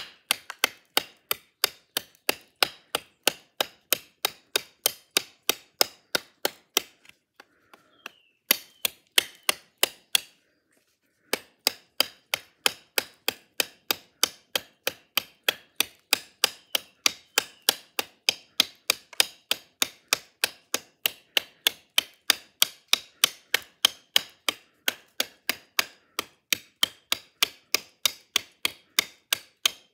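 A Spyderco high-impact ceramic Mule Team blade chopping into wood: sharp, bright strikes at about three a second, with two short breaks about a third of the way in.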